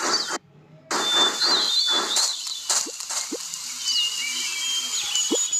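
Animal calls: a few rough, noisy calls in the first couple of seconds, then high, quick bird chirps and whistles.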